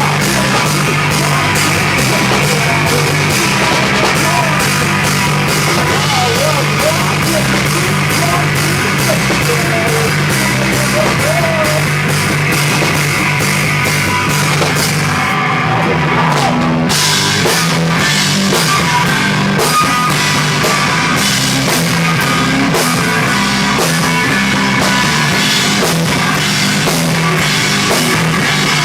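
Live rock band playing loud, with a drum kit, bass and guitar. About halfway through, the cymbals drop out for roughly a second before the full band crashes back in.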